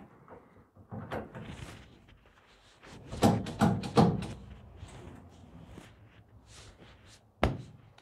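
Retractable three-point seat belt being drawn across the body and buckled: handling noise from the webbing and plastic trim, a cluster of sharp clicks and knocks about three to four seconds in as the latch plate goes into the buckle, and a single sharp thunk near the end.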